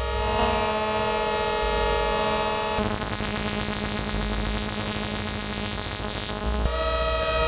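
Electronic synthesizer played live: sustained layered tones with a buzzy, hum-like edge over a low pulsing bass. The chord shifts about three seconds in and again near the end.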